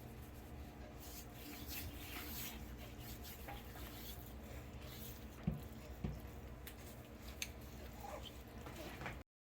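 Quiet kitchen handling sounds: soft rubbing and rustling with a few small clicks, and two light knocks about five and a half and six seconds in. The sound cuts off suddenly near the end.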